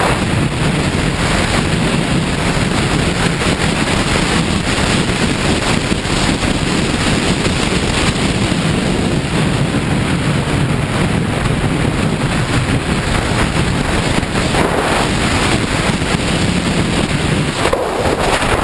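Heavy wind noise on the microphone over a KTM 690 Duke R's single-cylinder engine running steadily while riding at speed.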